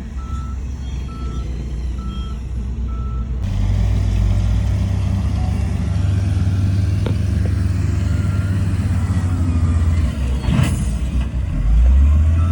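Heavy diesel earthmoving machinery running with a steady low rumble, while a reversing alarm beeps about once a second for the first three seconds. A short hiss comes near the end.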